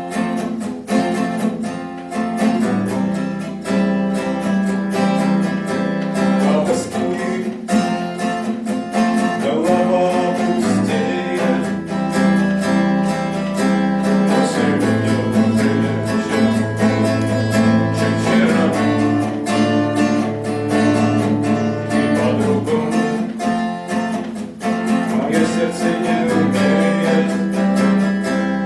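A song on strummed acoustic guitar, with a voice singing over it at times.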